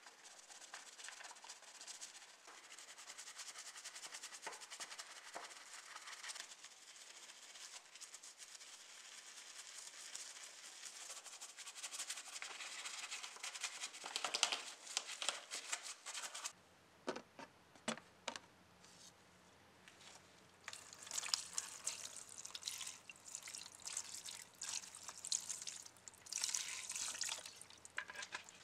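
A bristle brush scrubbing a model car chassis coated in foaming cleaner, a steady wet scrubbing hiss. About halfway through it gives way to irregular short bursts of scrubbing and handling noise over a faint low hum.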